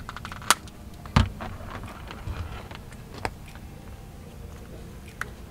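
Tape being worked onto a wire by hand: a few sharp clicks, the loudest about a second in, with crackly rustling between.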